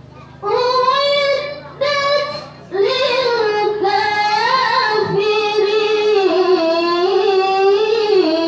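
A girl's voice reciting the Qur'an in melodic tilawah style into a microphone: two short phrases, then from about three seconds in one long held line that wavers up and down in pitch.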